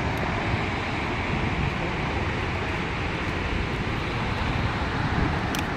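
Steady rushing roar of Snoqualmie Falls, a large waterfall, with wind buffeting the microphone.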